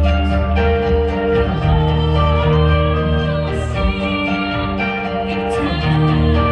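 Live contra dance band playing a tune during its sound check, with a steady bass line under held melody notes.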